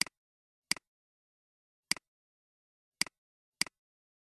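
Computer mouse button clicking five times at uneven intervals, each click a quick double tick of press and release, with dead silence between clicks.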